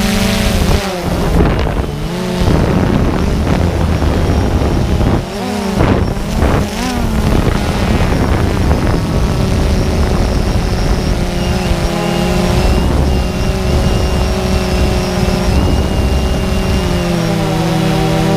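An engine running steadily, its pitch sagging and swinging back up three times as it changes speed or passes by.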